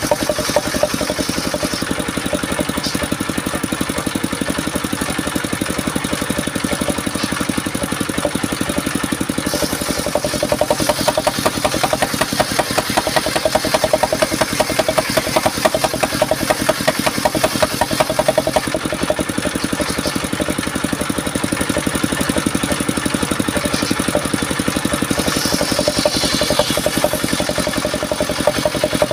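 Engine-driven portable circular sawmill running steadily, with a rapid even engine beat, as its large blade rips lengthwise along a wooden beam.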